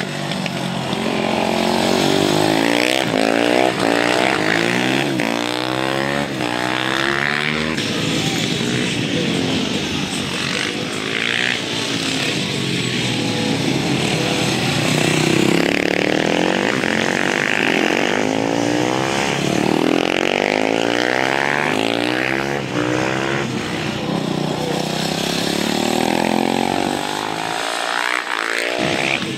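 Supermoto motorcycles lapping a kart track, engines revving up and dropping back again and again as the riders brake into the corners and accelerate out through the gears.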